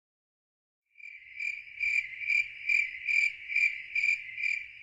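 A cricket chirping in a steady, even rhythm, a little over two high-pitched chirps a second, starting about a second in.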